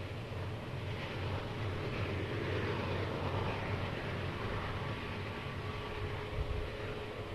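Diesel locomotives of a BNSF intermodal train, a GE unit leading, running with a steady low rumble.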